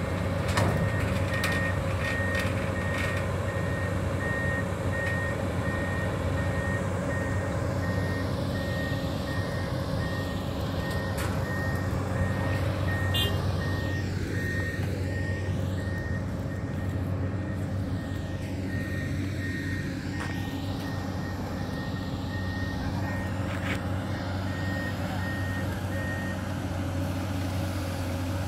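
Amphibious excavator with a Komatsu PC200 upper: its diesel engine running steadily while a warning alarm beeps in an even on-off pattern. The beeping stops about two seconds before the end.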